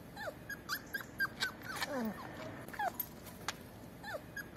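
Brittany spaniel puppies whimpering and yipping: a quick run of short, high squeaks that fall in pitch, several a second, with a lower falling whine about two seconds in and a few sharp clicks among them.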